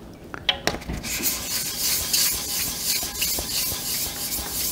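Wet sandpaper, 600 grit, rubbed by hand in quick back-and-forth strokes over the painted surface of a motorcycle gas tank, a steady scratchy rubbing that starts about a second in after a couple of light clicks.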